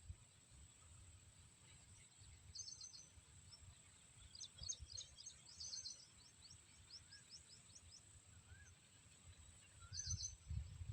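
Faint high-pitched bird chirps in quick clusters about two and a half seconds in, around the middle and again near the end, with a run of thin rapid notes between them, over a low outdoor rumble.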